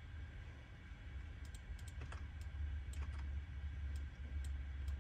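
Irregular taps and clicks on a computer keyboard, a few a second from about a second and a half in, over a steady low hum.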